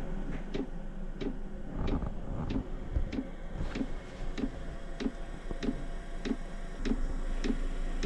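Diesel air heater starting up: its fuel dosing pump ticking evenly, about three ticks every two seconds, over a steady low hum.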